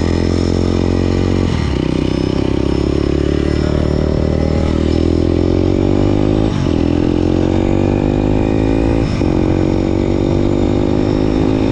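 Derbi Senda motorcycle engine pulling up through the gears. Its pitch climbs steadily and dips briefly at three gear changes, about one and a half, six and a half and nine seconds in.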